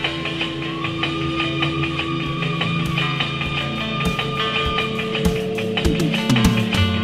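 Background music with held notes over a drum beat that grows stronger in the second half.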